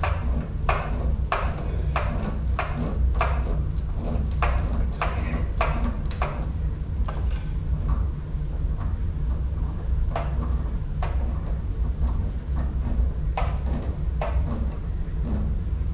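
Small electric pump running with a steady low hum, draining the water heater through a hose. Sharp knocks sound over it, quickly and regularly for the first half, then only now and then.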